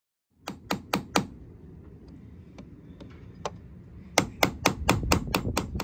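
A series of sharp taps and knocks, like hard objects striking wood: a few in the first second, scattered single ones after that, then a quick run of knocks over the last two seconds.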